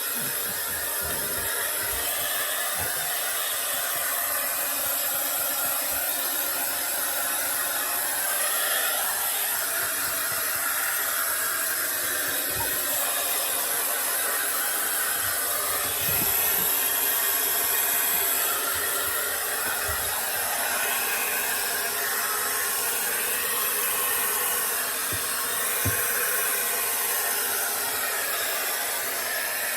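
Handheld hair dryer blowing steadily with a high whine from its motor, rising a little for a couple of seconds midway.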